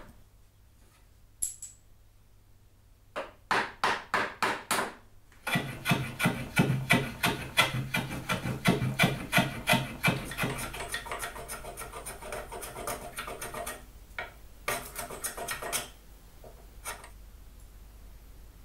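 Hand tools working wood: a run of about seven short strokes, then several seconds of quick rubbing strokes about five a second, easing into a softer scraping and a few last strokes before it stops.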